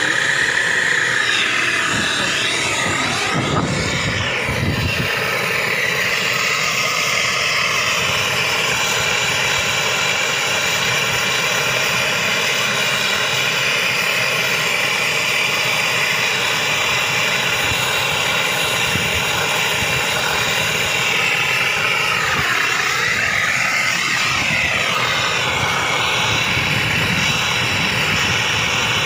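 Handheld gas brazing torch burning with a steady rushing flame while a copper refrigerant pipe joint is brazed. The tone of the flame sweeps up and down twice, about two seconds in and again near the end, as the torch is moved.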